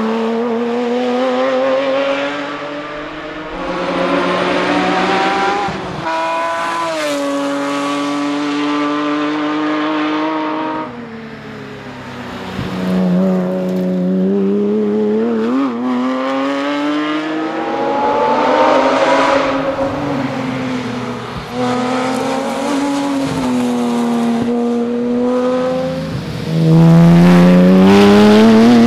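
Porsche Cayman S engine under hard acceleration on a rally stage, its pitch climbing through each gear and dropping at the shifts. There is a brief lift-off about eleven seconds in, then it pulls hard again and revs high near the end.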